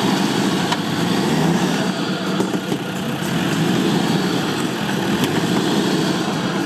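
Land Rover Defender 4x4's engine running steadily as the vehicle climbs a dirt bank on a taut winch line.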